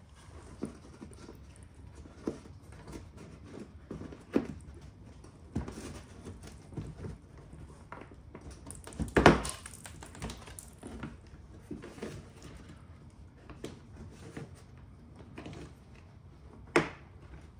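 Scattered plastic clicks and knocks as push-in trim clips and tabs on a BMW i3s front bumper and grille cover are pressed and pried, with one louder knock about nine seconds in.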